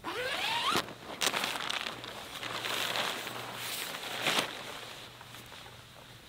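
Tent door zipper pulled open in one quick rising zip. Then the nylon tent fabric rustles and crinkles as someone crawls out, with soft steps on the ground near the end.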